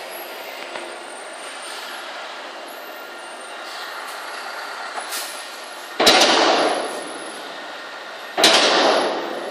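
Scania R500 truck's V8 running as the truck rolls slowly up a ferry's vehicle ramp: a steady hum heard in the cab. Two sudden loud bursts of noise come about six and eight and a half seconds in, each fading over about a second.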